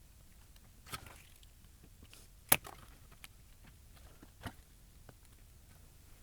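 Scattered light clicks and taps of desoldering tools working on the legs of a mains electrolytic capacitor on a TV power-supply board, with one sharp click about two and a half seconds in.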